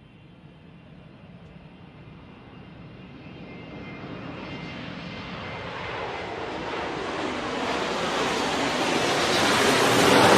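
A rushing, airplane-like noise that swells steadily louder and brighter throughout, building as an intro sound effect.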